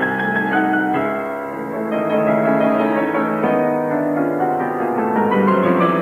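Solo piano playing quick runs of notes, with a climbing figure rising in pitch over the last couple of seconds.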